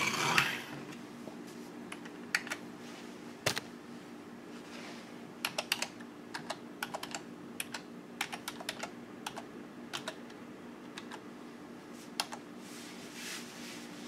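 Computer keyboard keys pressed in irregular runs of quick clicks, typing a Windows sign-in password, after a brief rustle at the start.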